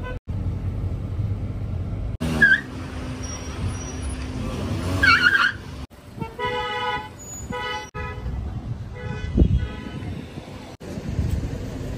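Car horns honking in repeated short blasts over steady car engine and road noise, the honking coming in the second half.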